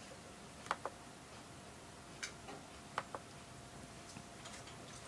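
A pet rabbit moving about in her cage at night makes a few sharp, irregular clicks and knocks. There is a pair under a second in, a single click just after two seconds, and another pair at about three seconds, over a faint steady high hum.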